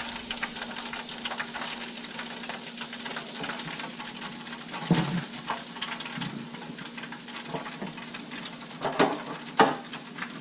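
Hot oil in an electric deep fryer crackling and sizzling steadily as a basket of fried mangrove snapper is lifted out to drain. A few short knocks of the wire basket come about five seconds in and twice near the end as the fish are tipped out.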